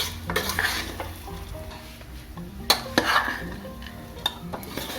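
Soaked rice being stirred and fried in ghee in a pressure cooker: a low sizzle, with a spoon scraping and knocking against the pot a few times.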